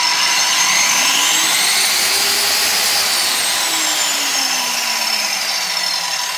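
Dexter 2100 W, 230 mm angle grinder running at full speed with no load, its disc spinning freely: a loud, steady whine and rush of air, with a faint tone that slowly rises in pitch and then falls.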